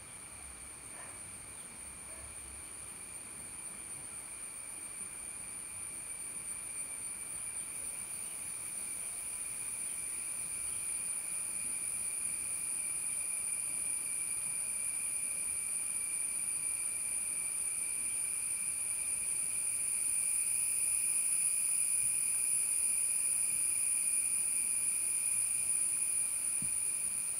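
Insects calling in a steady chorus, a continuous high-pitched shrill that slowly grows louder.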